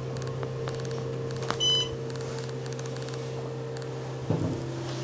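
Steady electrical hum in a small elevator cab, with one short high electronic beep about a second and a half in and a brief louder noise with wavering pitch near the end.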